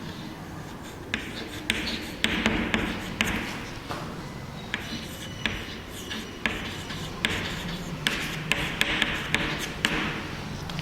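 Writing on a classroom board: short scratchy strokes broken by sharp taps as letters are written out, in an uneven rhythm.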